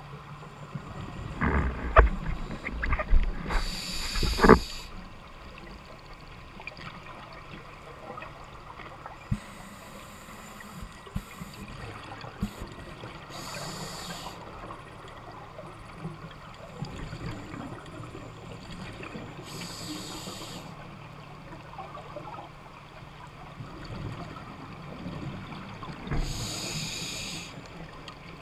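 Underwater: a scuba diver's exhaled bubbles rushing out of the regulator in short hissing bursts about every six seconds, five times, over steady low water noise. A cluster of loud knocks and thumps against the camera rig comes in the first five seconds.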